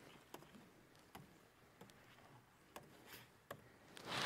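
Near silence, broken by a few faint, scattered clicks.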